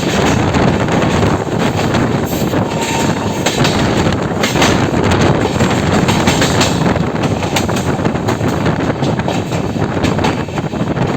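Express passenger train running, a steady loud rumble and rush of noise with the wheels clattering over rail joints in irregular sharp clicks.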